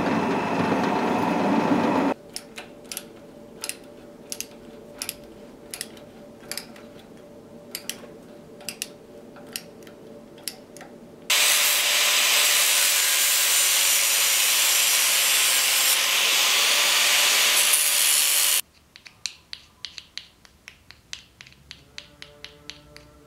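A drill press cuts a small steel fitting for about two seconds, then stops. A quieter stretch of scattered light metal clicks over a faint hum follows, then an angle grinder grinds the steel fitting in a vise steadily for about seven seconds and cuts off suddenly. Small clicks near the end as the metal fitting is handled.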